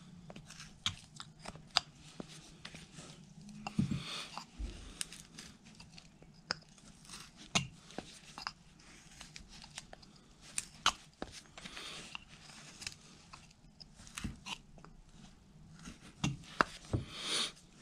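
Carving knife cutting into a basswood block: irregular small cracks and scrapes as the blade slices the wood and chips break away.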